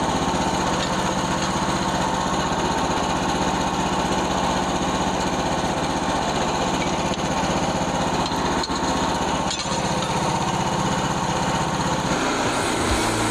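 Small gasoline engine running steadily, most likely the engine of a Frontier OS27 portable bandsaw mill; its low note changes near the end.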